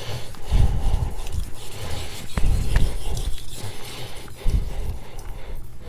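Shigefusa kitchen knife of Swedish carbon steel being stroked back and forth on a whetstone: several uneven scraping strokes, with a few light clicks.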